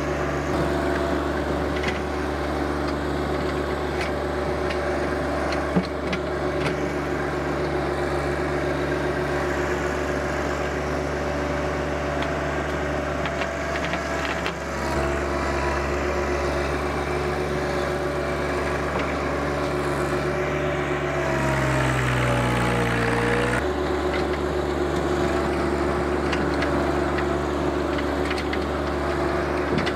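John Deere 1025R compact tractor's three-cylinder diesel engine running steadily at working throttle. About three-quarters of the way through, its pitch sags for a couple of seconds as it lugs under load in the dirt, then comes back up.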